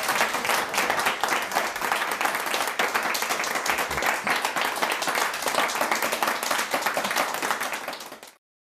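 Audience applauding: steady, dense clapping that fades and cuts off near the end.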